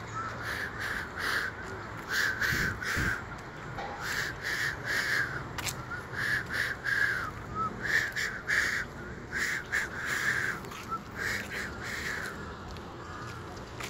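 Birds calling: runs of short repeated calls, two or three a second, with brief pauses between runs, thinning out near the end.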